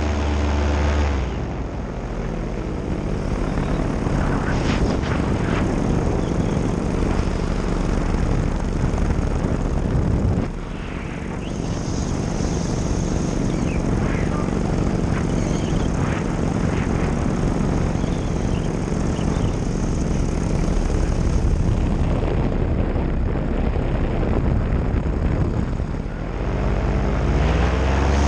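Nitro 200 two-stroke paramotor engine and propeller running steadily at high power, easing off briefly about two seconds in, again about ten seconds in, and near the end.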